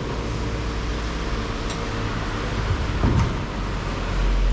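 Steady low rumble and hiss with a faint hum, swelling briefly about three seconds in.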